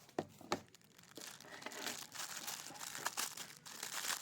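Plastic packaging crinkling and rustling as it is handled, after two sharp clicks in the first half second.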